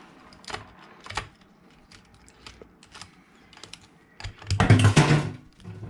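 Small sharp clicks and taps of a screwdriver and metal parts being worked on a motorcycle carburetor, with a louder rushing noise lasting about a second near the end.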